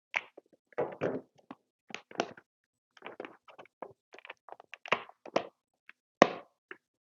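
Stud finder's hard retail packaging being wrestled open by hand: irregular clicks, knocks and crackles, with the loudest sharp knock about six seconds in.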